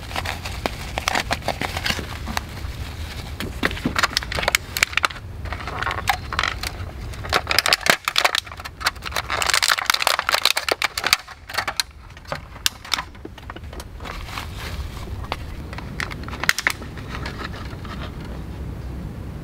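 Crackling and crinkling of plastic food packaging, with sharp clicks, as cling film is pulled off a foam tray of sliced pork belly and a clear plastic clamshell pack is handled. The handling dies down about two seconds before the end, leaving a steady low background.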